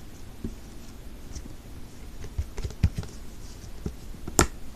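Sticky homemade slime being squeezed and poked by hand, making a run of small wet clicks and pops that come more often from about halfway and grow louder near the end.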